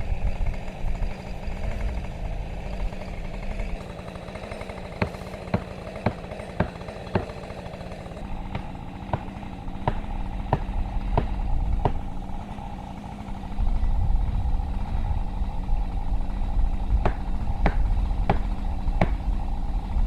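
Repeated sharp knocks, about one every half second or so in two runs, as felling wedges are struck into the back cut of a hung tree, over a chainsaw running steadily in the background. The tapping is what starts the tree leaning over.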